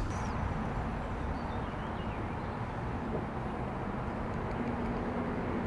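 Steady background rumble of distant road traffic, with a low hum that grows slightly stronger in the second half.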